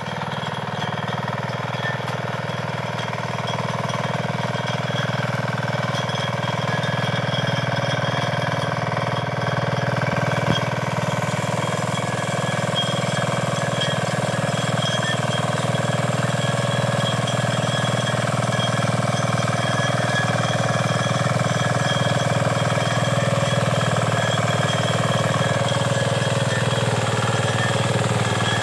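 A 9 hp power tiller's engine running steadily, with a slight rise in level over the first few seconds.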